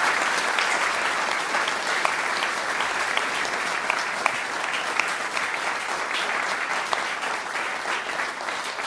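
Audience applauding steadily, a dense patter of many hands clapping that slowly dies down near the end.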